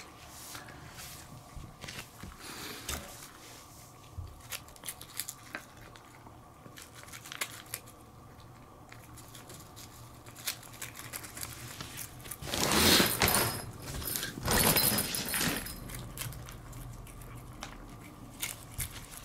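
Cats eating fast from a shallow dish: a steady run of small wet chewing and licking clicks, with two louder, rustling stretches of about a second each about two-thirds of the way through.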